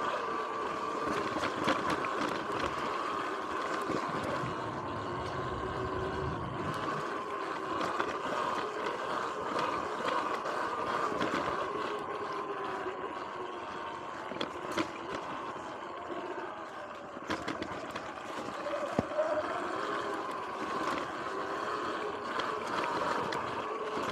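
Sur-Ron X electric dirt bike on the move: the electric motor and drivetrain whine, rising and falling in pitch with speed, with frequent knocks and rattles over bumps in the trail.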